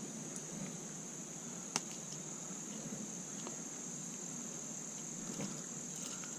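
Steady, high-pitched insect chorus, with one sharp click a little under two seconds in.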